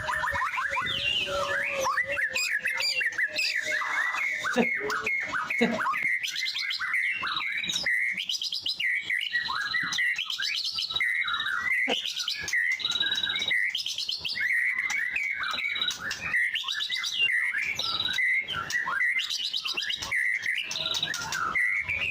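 White-rumped shama (murai batu) singing without a break: a rapid, varied run of whistled phrases, chirps and rattling trills, in the full 'gacor' song that bird keepers use as a tutor recording.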